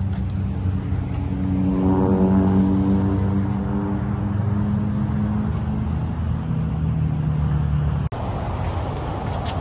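Motor vehicle engine accelerating. Its pitch climbs over the first couple of seconds, then holds and eases, over steady road noise. The sound breaks off abruptly for an instant about eight seconds in.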